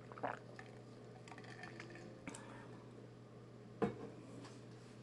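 Faint squishing of fingers pressing and smoothing wet plaster of Paris, with a brief louder squelch about a third of a second in and another nearly four seconds in, over a steady low hum.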